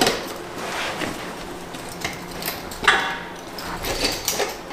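Metal clanks and scrapes as a Subaru manual transmission is handled on a concrete floor: a sharp knock at the start and a louder one about three seconds in, with lighter clatter between.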